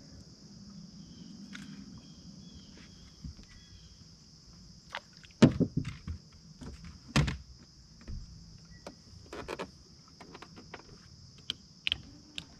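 Irregular knocks and bumps of gear being handled on a bass boat deck, the loudest about five and a half and seven seconds in. A steady high-pitched insect chorus runs underneath.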